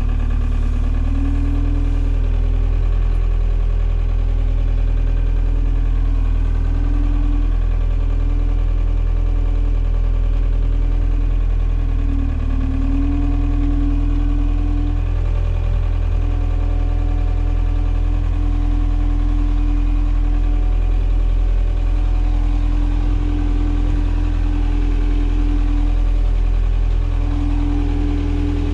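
Forklift running while it carries a loaded pallet: a steady low hum with a whining tone that rises and falls every few seconds as it drives and manoeuvres.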